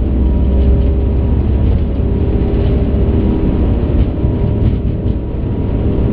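Airbus A380 on its high-speed takeoff roll at takeoff thrust, heard from the cockpit: a loud, steady deep rumble from the engines and the wheels on the runway, with a steady hum over it.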